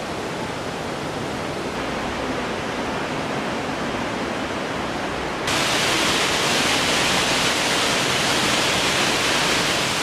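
Steady rushing roar of the Fukuroda waterfall. It turns suddenly louder and brighter about halfway through.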